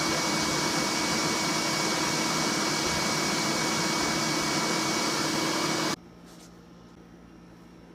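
Steady, loud whir of an electric motor-driven appliance, switched off suddenly about six seconds in, leaving quiet room tone.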